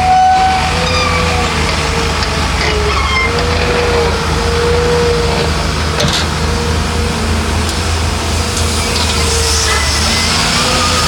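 Heavy diesel earthmoving machinery running steadily: a low engine drone with a wavering whine above it.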